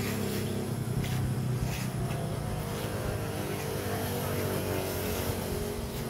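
An engine running steadily at a low, even pitch.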